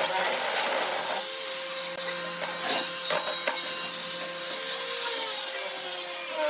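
A hand tool working wood, with a steady rasping noise and a few sharp knocks about two to three and a half seconds in.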